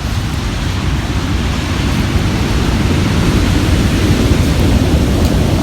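Ocean surf rumbling: breaking waves make a steady, deep roar that builds slowly in loudness.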